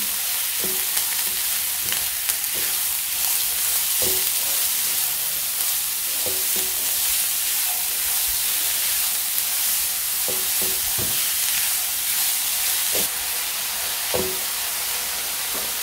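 Chopped onions sizzling in hot butter in a non-stick pan as they are sautéed and stirred, a steady hiss with occasional knocks of the stirring utensil against the pan.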